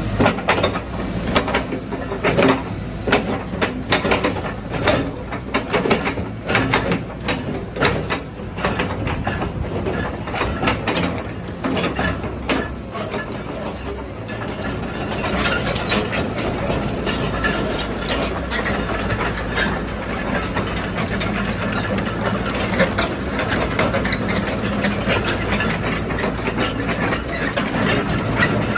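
Caterpillar 312D tracked excavator running, with many sharp metallic clanks and rattles through the first half, then a steadier running sound from about halfway on.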